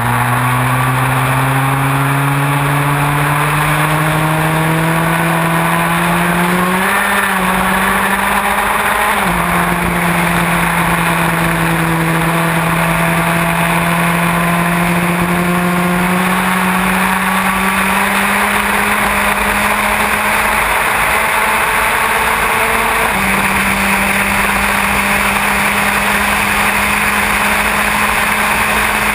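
Onboard sound of a Formula Ford racing car's four-cylinder engine at full throttle. Its note climbs slowly for long stretches, dips a couple of times around seven to nine seconds in, and drops a little about 23 seconds in. A steady rush of wind and wet-track spray runs underneath.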